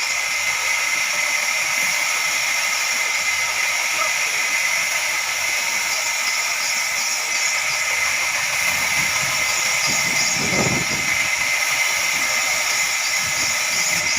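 Band sawmill running, its blade cutting through a log with a steady high hiss and whine. A brief low rumble rises about ten seconds in.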